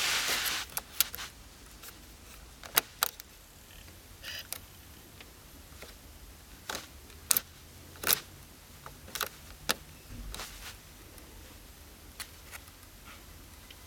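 Irregular sharp mechanical clicks and taps, about a dozen over several seconds, after a short rush of noise at the very start; no music plays.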